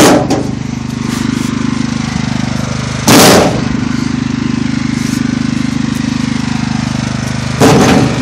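Craftsman lawn tractor engine running steadily, warming up after a cold start. Three short, loud bursts of noise cut across it: at the start, about three seconds in, and near the end.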